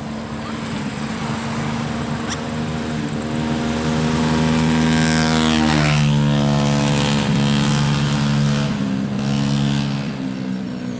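A motor vehicle engine running and passing close by. It grows louder to a peak about halfway through, and its pitch drops as it goes past.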